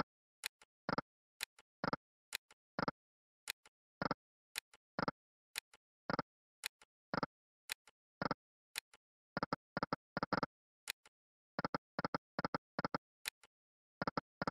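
An online slot game's short synthetic clicks, a few a second in small clusters with dead silence between, as the reels stop on spin after spin.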